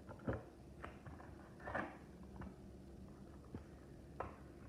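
Scattered light clicks and a brief rustle of hands handling an Otterbox Defender phone case and its packaging during unboxing.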